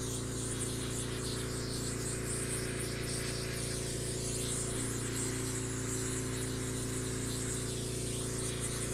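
Steady electrical hum with a stack of overtones, under the faint hiss of a handheld gas torch flame warming a brass bugle bell to soften the metal for reshaping.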